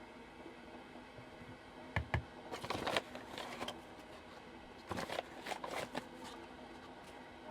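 Handling noises in a small room: two quick knocks about two seconds in, then rustling that comes again about five seconds in, over a steady low hum.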